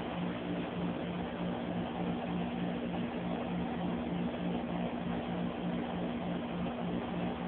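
Steady low hum under a hiss, the hum pulsing evenly a few times a second.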